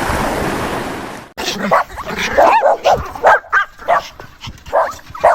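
A noisy hiss for about the first second, cutting off abruptly. Then a dog gives a quick string of short whines and yips, several bending up and down in pitch: a mother dog calling her puppies.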